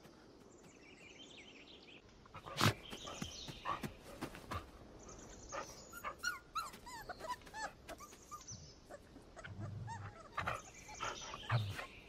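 Wolf pups whimpering and squeaking at the den: many short, high, rising-and-falling yelps that grow busier from about halfway through. Scattered sharp clicks and rustles run among them, the loudest a snap about two and a half seconds in.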